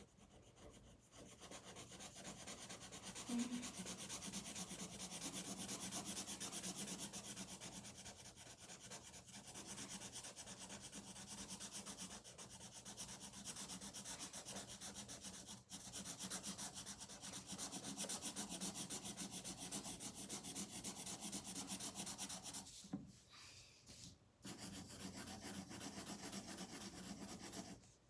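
Felt-tip marker scribbling on paper in rapid back-and-forth strokes, colouring in a flower petal, with a few brief pauses.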